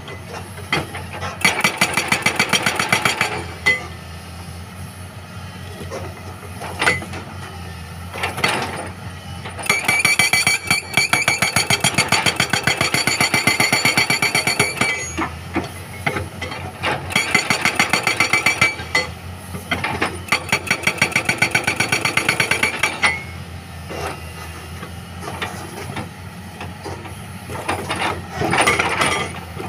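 Hydraulic breaker on a Caterpillar excavator hammering rock in runs of rapid, evenly spaced blows, each run lasting a few seconds. The excavator's diesel engine runs steadily between the runs.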